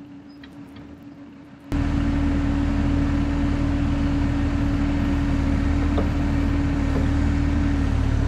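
A machine's engine running steadily, faint at first and then suddenly much louder just under two seconds in, with a low, even hum.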